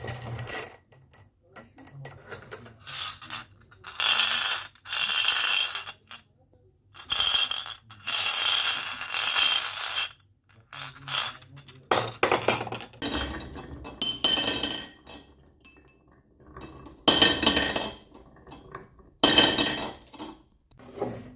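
Glass marbles rolling and clattering down a wooden marble run track, clinking in bursts of a second or two with short pauses between them.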